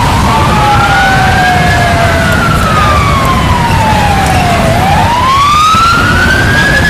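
Emergency vehicle siren in a slow wail. It rises in pitch for about two seconds, falls for about three, then rises again, while a second siren tone falls and fades in the first couple of seconds. A steady low rumble runs beneath.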